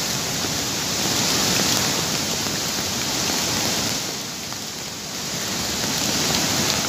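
Steady rushing noise of heavy rain and a swollen river in flood, dipping briefly about four seconds in.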